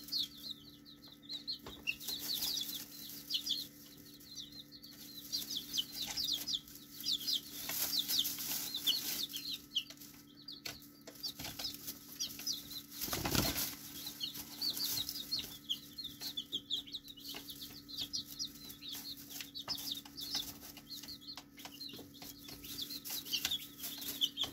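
Month-old chicks peeping almost continuously in quick, short, high chirps that fall in pitch, with light clicks and rustles in the straw and a brief louder rush of noise about 13 seconds in.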